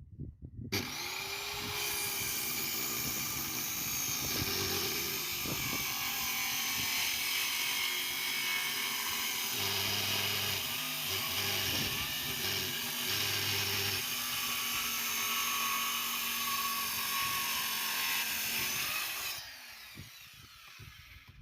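An electric power tool motor runs for about 18 seconds. It spins up just under a second in and winds down near the end.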